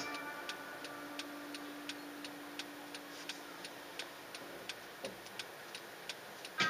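A car's turn-signal flasher ticking evenly, about three clicks a second, heard inside the cabin. A faint steady hum lies under the first four seconds.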